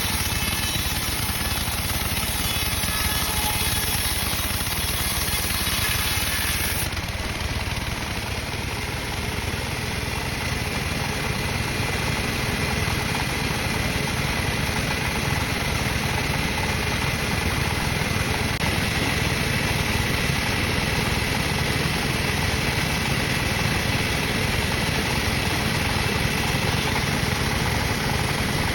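Sawmill machinery running steadily: a constant engine-driven mechanical drone with hiss, its top end changing slightly about seven seconds in.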